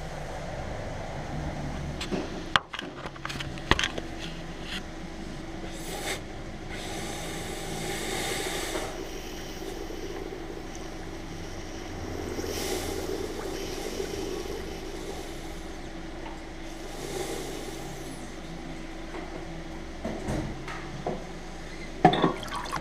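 Audi 3.0 TFSI supercharged V6 running steadily with a constant hum, with a few sharp clicks or knocks near the start and near the end. The engine has a misfire put down to coolant leaking from the supercharger's charge-cooler core.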